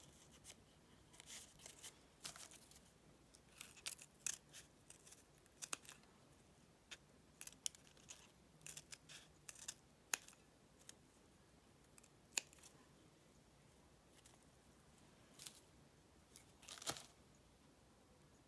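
Scissors snipping pieces out of pale fabric: faint, short, irregular snips and clicks, with a slightly louder cluster of cuts near the end.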